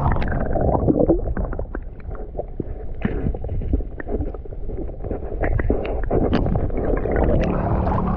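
Muffled sound heard underwater from a camera dipped in a shallow creek: a steady water rumble with scattered knocks and clicks as a hand gropes over the gravel bottom. Near the end comes a splash as the hand breaks the surface.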